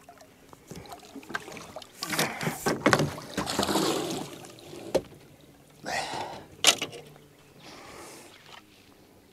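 Blue catfish thrashing and splashing at the surface as it is scooped into a landing net. The net frame and handle knock sharply against the boat several times as the net is lifted aboard.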